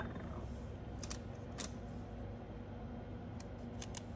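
A handful of small, sharp plastic clicks and taps as a clear jelly nail stamper is handled on the tabletop, over a steady low hum.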